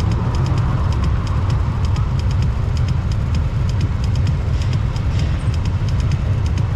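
Yamaha NMAX 155 scooter riding along, its engine and the rush of riding wind on the action camera's microphone making a steady, loud low rumble with no letup.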